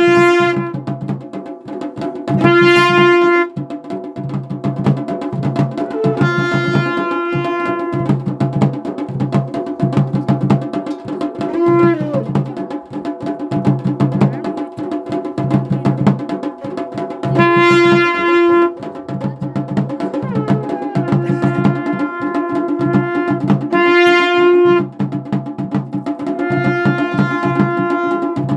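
Ritual folk music for a jagar: a loud, bright, horn-like wind instrument sounds long held notes every few seconds over a steady, continuous drum beat.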